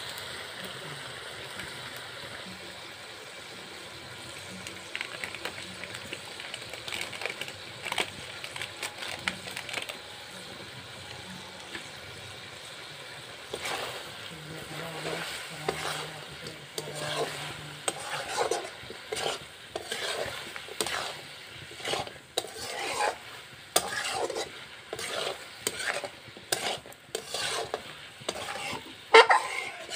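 Chicken pieces sizzling in a wok as they are stir-fried with garam masala. A spatula stirs and scrapes them against the pan in repeated strokes from about halfway through, with the loudest scrape near the end.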